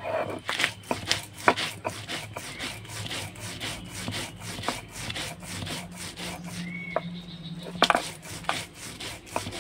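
Stone roller grinding black mustard seeds, raw peanuts, green chillies and poppy seeds into paste on a textured stone slab (shil-nora), rubbing back and forth in repeated strokes.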